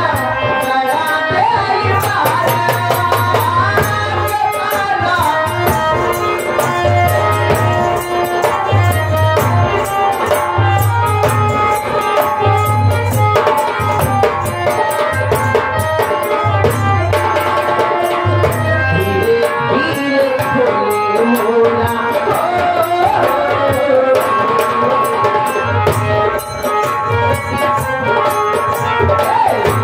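Live North Indian folk music: dholak and nagara kettle drum beating a driving rhythm with deep drum strokes, under a melody, with a voice singing gliding lines at times.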